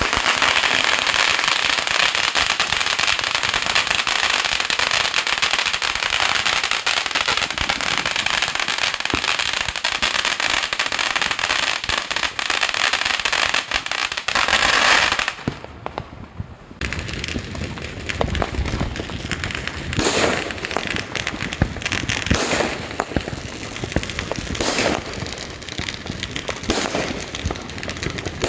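New Year's fireworks and firecrackers going off. A dense, continuous crackle lasts about fifteen seconds, then thins out abruptly. After that come separate bangs and booms every two seconds or so.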